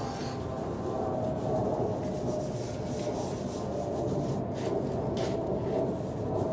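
Gloved hand rubbing and pressing wet mortar into the joints between glass blocks, a steady rough rubbing against the glass and mortar.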